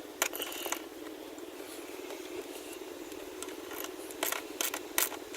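Socket wrench working a stiff bolt loose: a couple of clicks about half a second in, a quieter stretch, then a quick run of clicks near the end.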